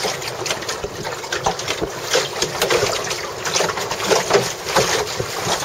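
Choppy water slapping and splashing irregularly against the hull of a Miracle sailing dinghy under way, with wind buffeting the microphone.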